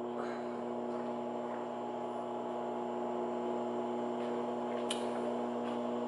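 Microwave oven running with a steady hum. A faint tick comes about five seconds in.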